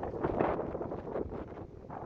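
Wind buffeting the microphone in irregular gusts, loudest about half a second in.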